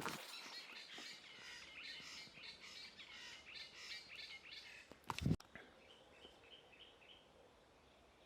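Wild birds chirping and singing, busily at first, then one bird repeating a short high note several times a second. A single sharp knock about five seconds in is the loudest sound.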